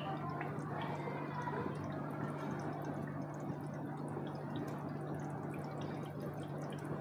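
Thin, oily fish-curry gravy simmering gently on a low flame in an aluminium pot: a soft, even crackle of small bubbles popping, over a steady low hum.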